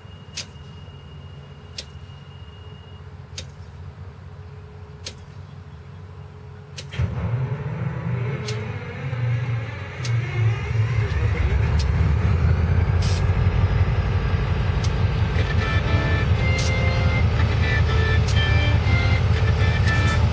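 EMD diesel locomotive starting up: faint regular clicks for several seconds, then the engine turns over with a low rumble about seven seconds in, and about three seconds later it catches and settles into a loud, steady idle.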